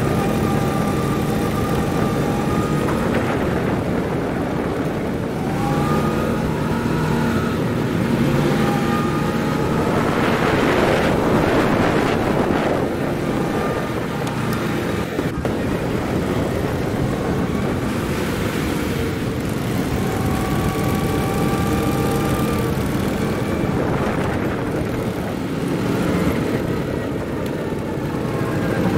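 Go-kart engines running hard on a track, their pitch rising and falling with the throttle through the corners. A broader rush of noise swells about ten seconds in.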